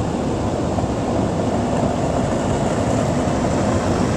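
Car wash blower dryers running, a steady rush of air heard from inside the car, with a faint steady hum in it.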